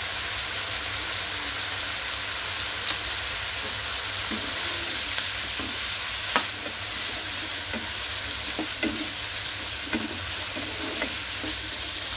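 Chicken with green chilli and capsicum sizzling in a pan as it is stir-fried, a steady frying hiss with a few sharp clicks of the stirring utensil against the pan.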